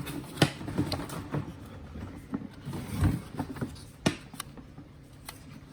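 Objects being handled and sorted: scattered, irregular light knocks and clicks with some rustling, the strongest a little after three seconds in and near four seconds in.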